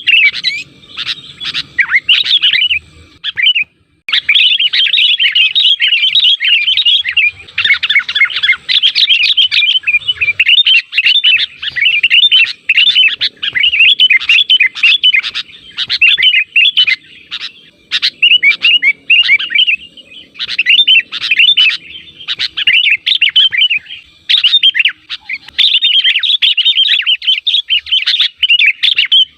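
Sooty-headed bulbul calling in a rapid, nearly continuous chatter of short notes, with a brief pause about four seconds in.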